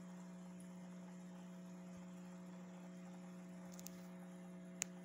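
A faint, steady low electrical hum, with a soft click a little before four seconds in and a sharper click near the end.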